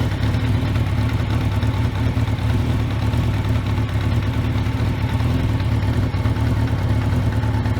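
Honda CB900 motorcycle's inline-four engine idling steadily while warm, with a deep even drone.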